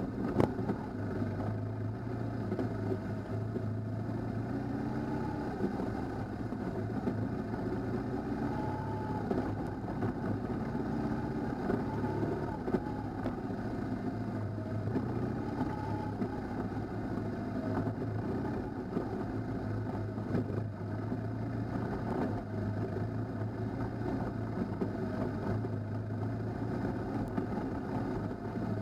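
Adventure motorcycle engines running at low speed on a dirt track, steady throughout, with the pitch rising and falling gently as the throttle changes.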